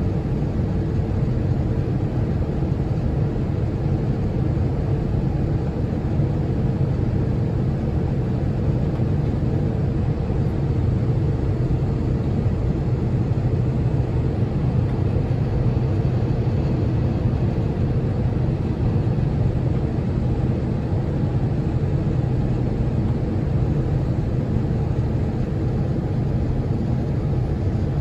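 Cabin noise of an Airbus A350-900 in flight: a steady low rumble of its Rolls-Royce Trent XWB engines and the airflow over the fuselage, unchanging throughout.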